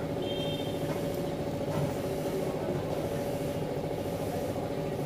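Honda Activa scooter's single-cylinder engine idling steadily, with the CVT cover off and the clutch bell exposed.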